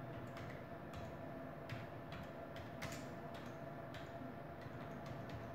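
Computer keyboard keys clicking faintly and irregularly as a short phrase is typed, over a low steady hum.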